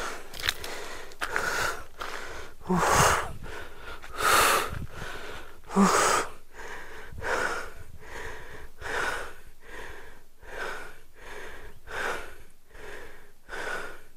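A person breathing hard and fast close to the microphone, one noisy breath after another in a steady rhythm, with a few louder gasps in the first half. He is out of breath from climbing a steep hill on foot in the heat.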